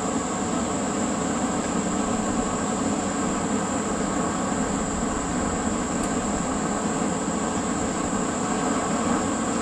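A steady, even roar with no hammer blows, as a gas forge's burner makes while running.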